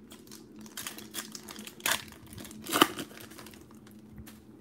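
Foil wrapper of a Panini Prizm baseball card pack being torn open and crinkled by hand. It makes a run of crackles and rustles, loudest about two and three seconds in, then fainter.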